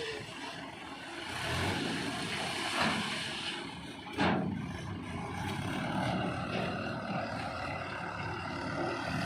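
Diesel engine of a backhoe loader running steadily, with one loud bang or clank about four seconds in.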